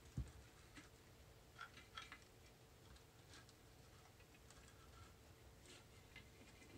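Faint clicks and light knocks from handling a Geiger counter's plastic case and circuit board, with one soft thump just after the start.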